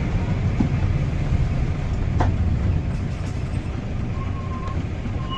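Guy Arab III bus engine running steadily with a deep, even rumble, joined about four seconds in by a thin, steady whistle that stops and starts again near the end.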